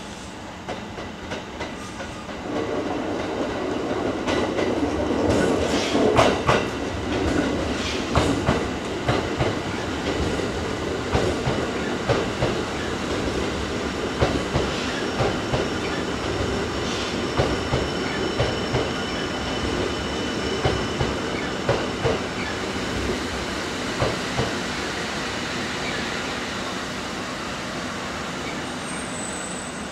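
Kintetsu limited express train running through the station, its wheels clattering over rail joints in a steady run of knocks. It grows louder about two and a half seconds in and eases off towards the end.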